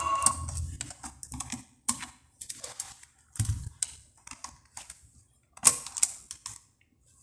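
Plastic clicks and knocks from the detachable faceplate of a Pioneer DEH-323 car CD receiver being handled, taken off and fitted back on. The sharpest click comes a little past halfway, with a duller knock about three and a half seconds in.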